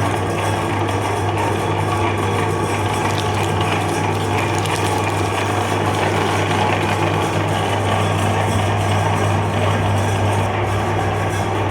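Meat grinder running steadily, a constant low hum under an even grinding noise.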